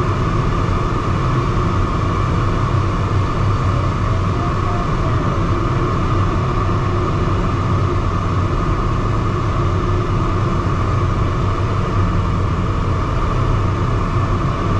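Steady rush of airflow over the canopy heard inside the cockpit of a DG303 glider in flight, a constant wind noise with a low rumble and an even hiss.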